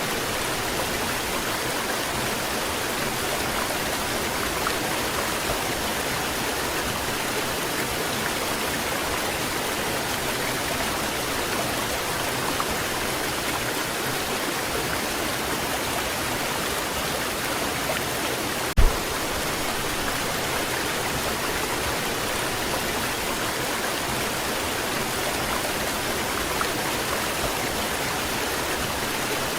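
Waterfall pouring steadily, an even wash of falling water with no change in level. A single brief thump cuts in about two-thirds of the way through.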